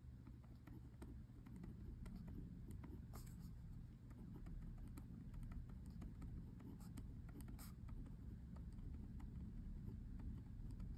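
Quiet room tone: a steady low rumble with many faint, scattered small ticks and scratches.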